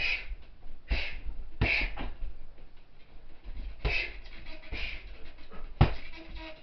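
Punches and kicks landing on a hanging heavy bag: about six sudden thuds, irregularly spaced, the loudest near the end.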